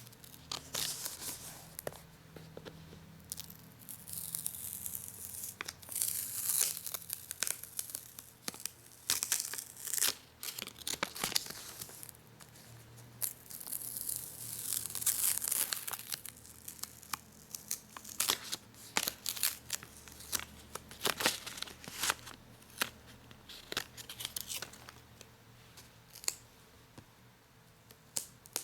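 Sticky paper and plastic being peeled off slowly, a crackling tear that comes in uneven strokes, with crinkling in between.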